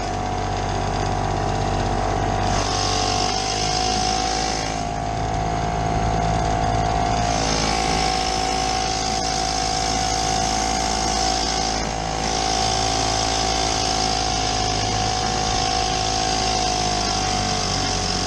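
Vintage Elgin two-stroke outboard motor running at speed at a steady pitch, pushing a small boat. A high hiss comes and goes over the engine.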